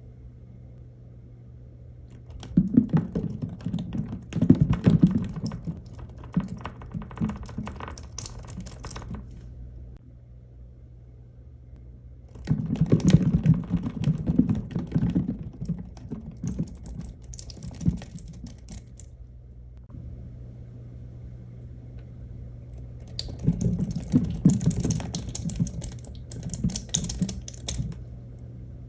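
The small balls of a miniature toy ball pit rattling and clicking against each other as a soft vinyl toy is moved through them, in three bouts of dense clicking. A steady low hum runs underneath.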